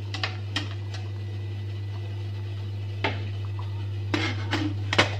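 Spoon clinking and scraping against a stainless steel steamer pot while stirring steamed basmati rice: a handful of sharp clicks, clustered near the start and again in the last couple of seconds. This is the mid-steaming stir that lets the rice cook evenly. A steady low hum runs underneath.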